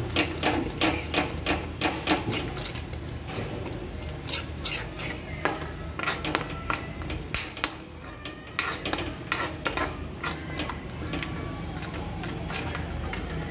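A metal spoon stirring a thick masala in a metal kadhai, with quick, irregular scrapes and clinks against the pan as cream is worked in. The strikes are densest in the first few seconds and come more sparsely after.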